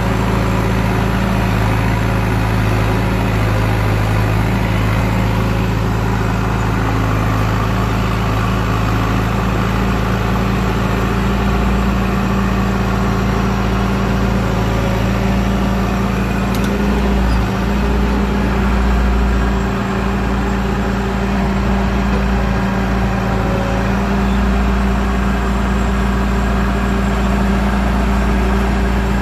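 1973 John Deere 450B crawler dozer's four-cylinder diesel running steadily on its first run after an in-frame overhaul with new cylinders, pistons, rings, head and rod bearings. Its low note shifts briefly about two-thirds of the way through.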